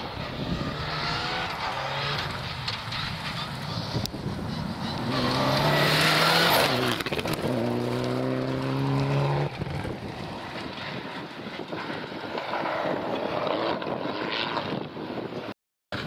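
Rally car engines revving hard as cars power past one after another on a gravel stage, pitch rising and falling with the throttle; loudest about six seconds in, with the sound cutting out for a moment near the end.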